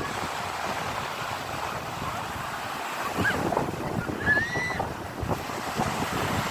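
Sea waves breaking and washing on a shore, a steady rushing noise that swells and surges. A short high-pitched call cuts through twice around the middle.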